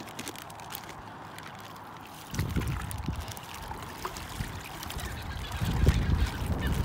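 Water sloshing and pouring as a plastic bag of trout is tipped out into shallow water, with rustling plastic. It starts about two seconds in and grows louder near the end.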